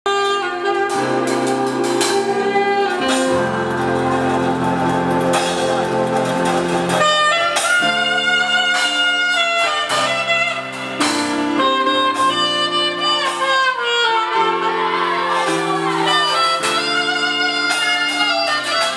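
Saxophone playing a slow melody over a live band of electric bass guitar, keyboard and drums, with held notes and several bent, sliding notes in the second half.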